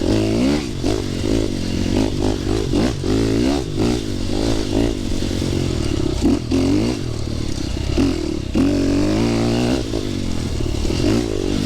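Dirt bike engine being ridden on a trail, its pitch rising and falling over and over as the throttle is opened and closed, with some rattling.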